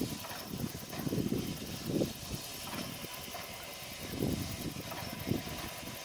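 Steam locomotive moving slowly past, with irregular low whooshing puffs about every half second to second.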